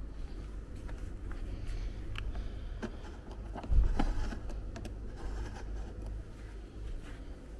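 Hand handling a knob on the plastic housing of a STIHL RLA 240 cordless lawn mower: light plastic clicks and scraping, with one louder thump a little under four seconds in. The mower is not running.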